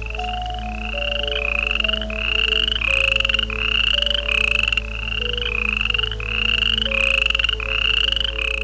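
A frog calling: a dozen or so short, pulsed calls, each rising slightly in pitch, repeated about one and a half times a second. Soft ambient music plays underneath.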